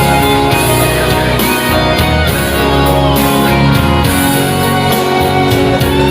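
Live band playing an instrumental passage, with guitar over a steady bass.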